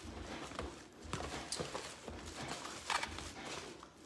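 Hands rummaging through a cardboard parcel of small packaged items: scattered light clicks and knocks as the items are picked up, with rustling of the packing in between.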